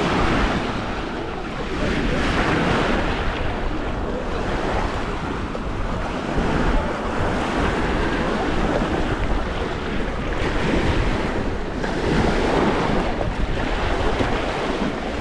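Sea surf washing onto a sandy beach, rising and falling in swells, with wind buffeting the microphone.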